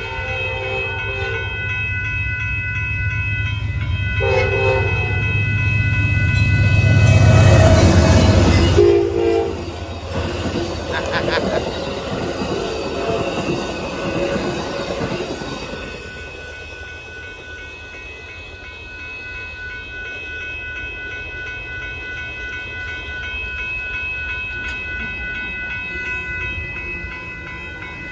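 Amtrak Texas Eagle passenger train passing at a road crossing: the diesel locomotive's horn gives short blasts about a second in, about four seconds in and about nine seconds in, a horn show in a quiet zone. The rumble builds to its loudest about eight seconds in as the locomotive goes by, then the cars roll past and the sound drops off about sixteen seconds in.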